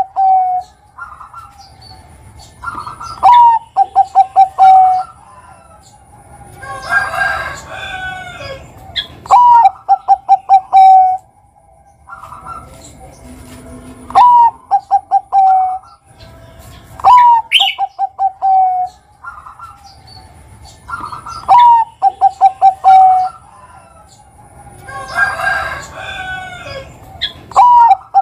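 Zebra dove (perkutut, Bangkok strain) singing its repeated coo phrase, one short rising note followed by a quick run of staccato coos, about every three to four seconds. Twice in between comes a noisier burst of higher bird chirping.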